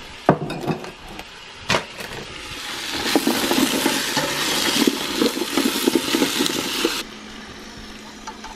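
Diced carrots, celery and onions sizzling in oil in a stainless steel stockpot while being stirred with a plastic spoon, with a few sharp knocks against the pot in the first two seconds. The sizzling and clatter cut off suddenly about seven seconds in.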